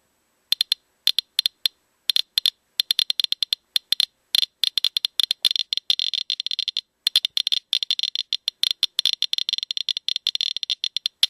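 Geiger counter clicking: a few scattered clicks at first, quickening into a rapid, nearly continuous crackle as the probe is brought up to radioactive check sources, with a brief break about seven seconds in.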